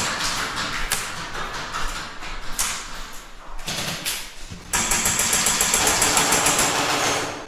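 Airsoft guns firing rapid full-auto bursts, a fast buzzing rattle, with a longer unbroken burst starting about five seconds in.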